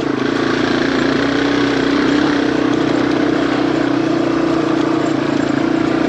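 Yamaha TW200's single-cylinder four-stroke engine running steadily while being ridden on a rutted trail, its sound loud through an exhaust whose baffles are worn out.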